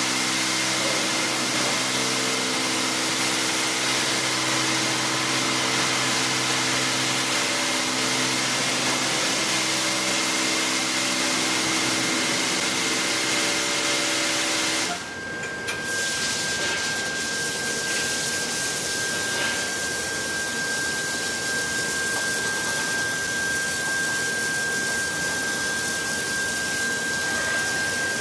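Touchless automatic car wash machine spraying a car: a steady hiss of high-pressure spray over the hum of its pump motor. About halfway through the sound drops briefly and changes to a hiss with a single high whine, as the machine moves to the foam stage.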